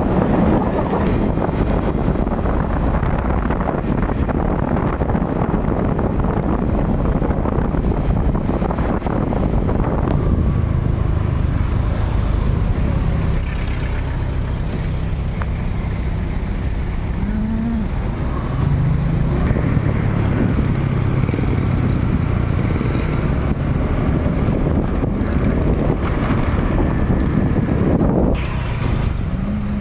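Road traffic heard from a moving motorcycle: a steady rush of engine, tyre and wind noise, heavier for the first ten seconds, with short engine revs rising about halfway through.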